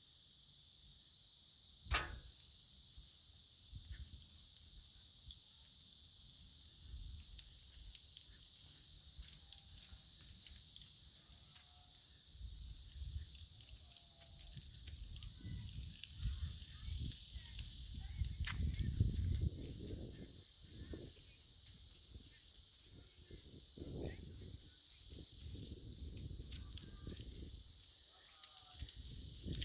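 Insects chirring in a steady, high chorus, with a sharp click about two seconds in and low rumbling through the second half, strongest a little past the middle.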